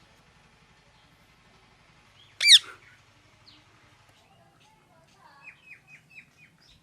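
A pet parrot gives one loud, sharp call about two and a half seconds in, then a quick run of about five soft chirps near the end.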